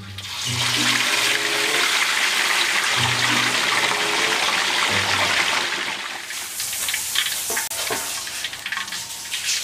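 A whole chicken goes into a wok of hot oil, and the oil sizzles loudly at once in a dense, steady hiss. After about six seconds the hiss thins into scattered crackling and popping. Light background music plays underneath.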